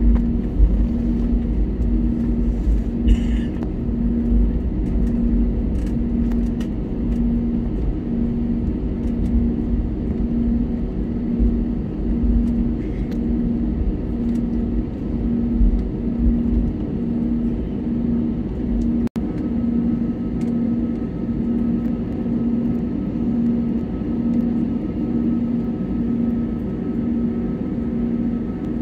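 Airbus A320neo's Pratt & Whitney PW1100G geared turbofans and airframe heard inside the cabin during taxi: a steady low rumble with a low tone pulsing about one and a half times a second. The sound cuts out for an instant about two-thirds through, and a faint higher steady tone joins afterwards.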